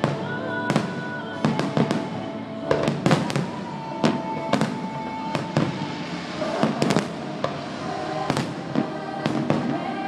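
Fireworks exploding overhead in a rapid string of sharp bangs, about two a second, some close together in clusters.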